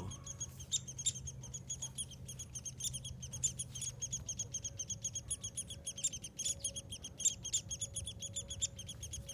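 Woodpecker nestlings calling from inside the nest cavity: a rapid, unbroken string of short, high chirps, several a second.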